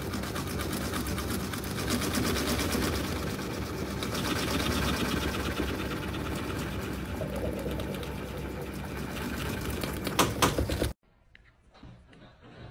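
Kitten purring loudly in a fast, steady rattle, with a few sharper clicks near the end before it cuts off.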